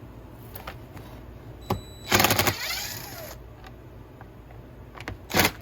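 Workshop tool handling on a chainsaw: a click, then a loud rattling burst that trails off, and another short rattle near the end.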